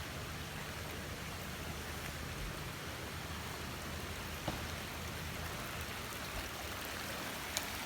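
Steady rain falling, an even hiss, with a couple of brief sharp taps about halfway through and near the end.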